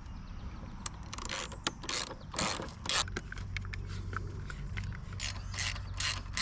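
Hand ratchet wrench clicking in short back-and-forth strokes, about two clicks a second, as the slip-on exhaust's mounting bolts are tightened.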